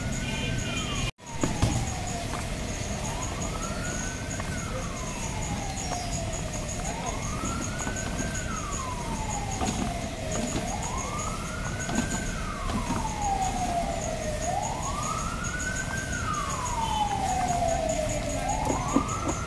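A wailing siren rising quickly and falling slowly about every four seconds, repeating steadily throughout, over steady street noise.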